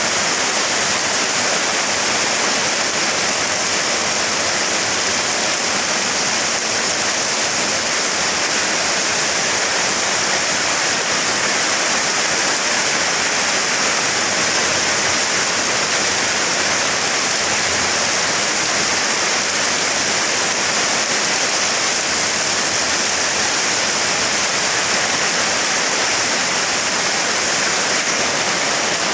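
Heavy rain pouring down in a dense, steady rush that does not let up.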